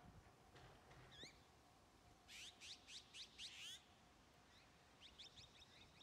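Azure-winged magpies calling faintly: a couple of short rising calls, then a quick run of about six rising calls about two seconds in, and a few shorter notes near the end.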